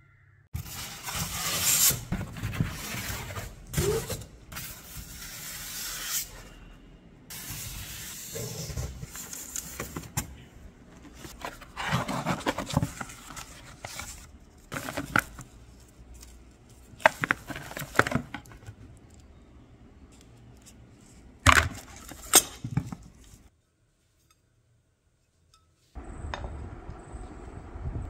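Soundbar packaging being handled: cardboard and foam rustling and scraping, with several sharp clacks and knocks. The sound stops for about two seconds near the end.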